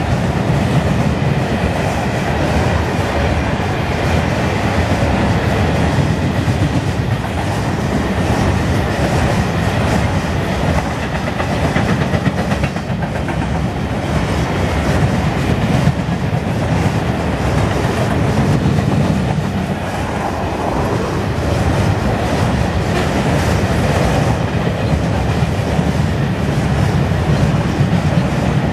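Covered hopper cars of a long freight train rolling past on a concrete bridge: a steady rumble with continuous wheel clatter on the rails.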